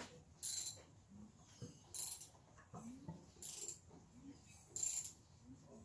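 A socket wrench on the flywheel nut of a Mercury Optimax outboard cranking the engine over by hand, with four short bursts of rasping clicks at even spacing, about one every second and a half. The engine is being turned with its spark plugs out to spread storage oil over the cylinder walls.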